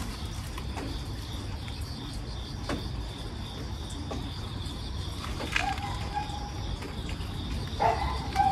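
Outdoor background: a low steady rumble under a thin, steady high hum, with a few faint clicks. Two short level tones sound, one about six seconds in and one near the end.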